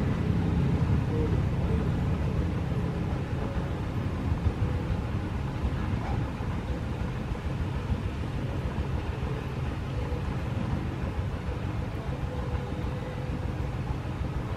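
Mother cat purring steadily while her kittens nurse: a continuous low rumble.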